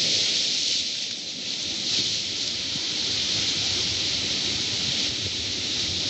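Sea surf washing over a rocky shore: a steady hiss of water.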